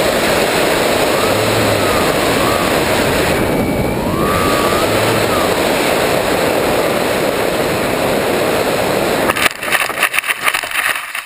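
Onboard-camera sound of an electric RC plane in flight: steady loud wind rush with a faint motor whine that wavers in pitch. About nine and a half seconds in, a run of sharp knocks and scrapes as it touches down and skids through dry grass, dying away at the end as it comes to rest.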